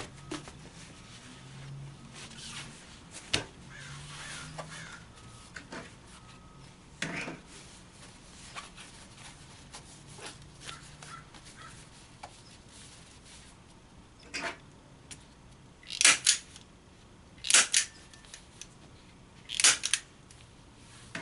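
Canvas cloth rustling as it is folded and pressed over a stretcher-bar corner, then a staple gun fired three times, each shot a sharp snap, about one and a half to two seconds apart near the end.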